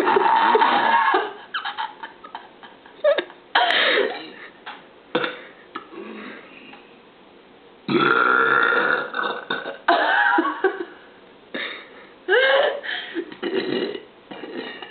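A young woman burping repeatedly. A long drawn-out belch ends about a second in and is followed by a few short burps. Another long belch starts about eight seconds in, followed by a string of shorter ones.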